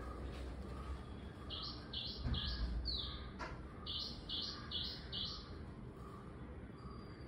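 A bird calling: two runs of four short, shrill notes, evenly spaced, the second run about two and a half seconds after the first.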